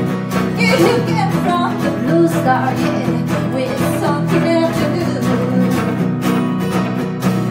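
Live song played on a strummed steel-string acoustic guitar and an electric guitar, with a woman singing.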